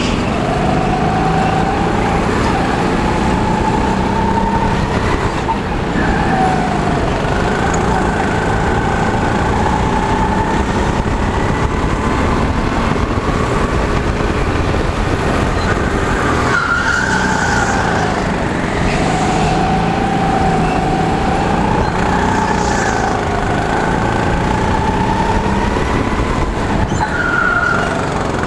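A go-kart's motor heard from the driver's seat under hard driving. Its pitch rises and falls around the lap, dropping sharply three times as it brakes into corners and climbing again as it accelerates out, over a steady rushing noise.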